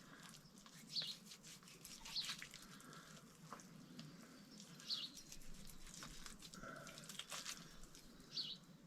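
A small bird chirping, short high calls about four times, over faint scattered clicks and scrapes.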